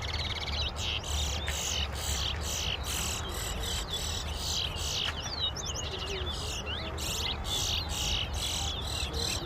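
Caged towa-towa finches singing in competition: a fast run of high chirping notes, about two a second, woven with rising and falling whistles.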